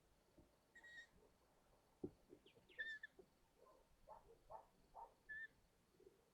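Long-eared owls at the nest giving three short, high calls a couple of seconds apart, faint, with soft rustling and one knock about two seconds in.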